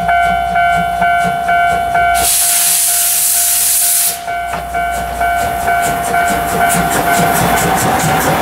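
Steam locomotive C58 239 of the SL Ginga starting away: a loud hiss of steam lasting about two seconds, then exhaust chuffs that quicken, over a steady high tone that fades near the end.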